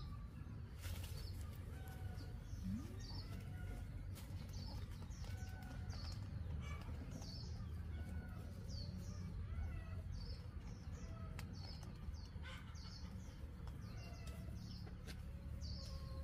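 Birds chirping over and over in short high calls, roughly one a second, with other brief calls lower in pitch and a steady low rumble beneath.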